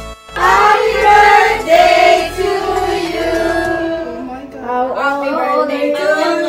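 Singing with music: voices hold long notes that slide in pitch, coming in suddenly just after the start.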